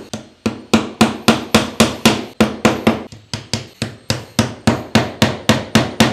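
Small hammer driving nails through a thin wooden lath into a workbench, a steady run of quick, light blows, about four a second.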